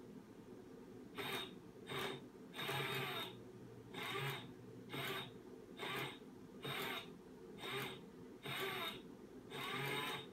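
Motor and gears of a FroliCat Fox Den cat toy whirring in about ten short bursts as its fox tail darts in and out under the dome.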